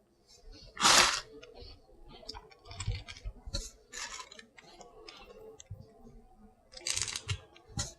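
Close-miked eating of sauce-covered seafood: wet chewing, smacking and scattered clicks, with a louder burst of noise about a second in and another cluster near the end.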